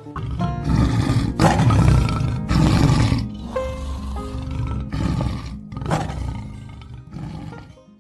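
A large wild animal roaring over and over, about six loud roars in a row, over background music.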